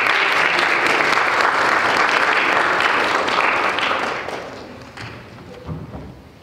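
Audience applauding, loud and steady at first, then dying away about four to five seconds in, with a soft thud near the end.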